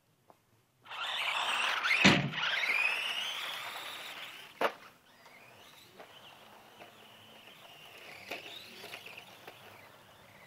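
Radio-controlled truck taking off with a high motor whine that rises and falls, a loud thud about a second later as it hits something, and a second sharp knock a couple of seconds after that. The whine then carries on fainter and steadier, with a few small clicks.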